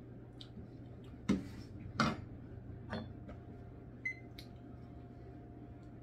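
A metal spoon set down on a table with two sharp clacks, a softer click, then a short high electronic beep from a digital timer as its button is pressed, over a steady low hum.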